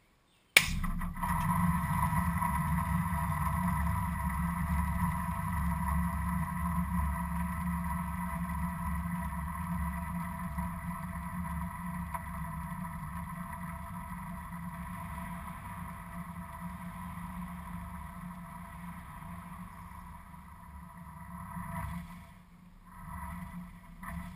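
Firetrace automatic fire suppression system discharging dry powder into an engine bay: a sudden sharp start as the heat-ruptured detection tube sets it off, then a steady rushing hiss with a low rumble and a few steady tones, slowly fading as the cylinder empties.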